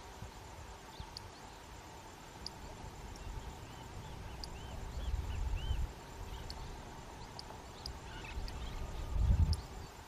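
Wind gusting on the microphone in low rumbles, strongest about halfway and just before the end, over faint high bird chirps scattered throughout and a short run of soft, arched whistled notes about four to five seconds in.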